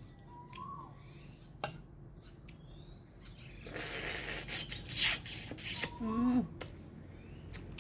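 Close-up eating sounds: light clicks and rubbing as a boiled egg's shell is peeled, then from about four seconds in a loud spell of slurping, sucking and chewing as the egg is bitten. A short hummed 'mm' falling in pitch follows, and a bird chirps once early on.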